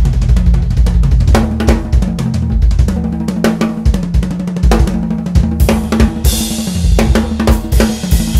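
DW drum kit being played: dense kick drum and snare hits with toms and hi-hat, and cymbal crashes washing in from about six seconds in.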